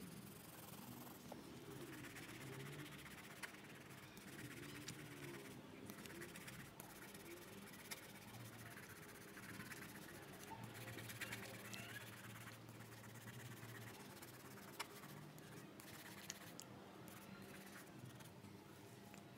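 Faint scratching of a graphite pencil hatching lines on paper, with a few light ticks.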